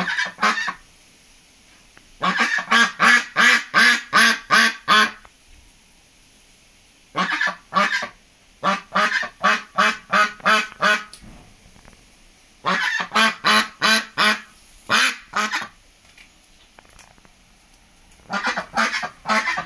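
White domestic duck quacking loudly in rapid bouts of five to ten quacks, five bouts with short pauses between them; the owner calls her angry.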